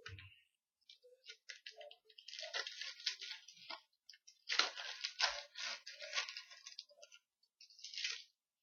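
Trading cards being handled and slid across one another, in bursts of crisp clicks and rustling with short pauses between them.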